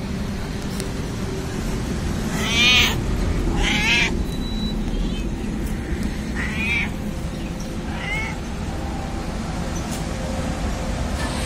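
Domestic cat meowing four times, the first two calls the loudest and the later two fainter.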